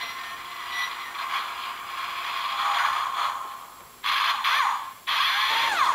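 Toy trailer truck's electronic drilling sound effect playing through its small speaker after a button press: a long buzzing drill noise, then two shorter bursts in the last two seconds.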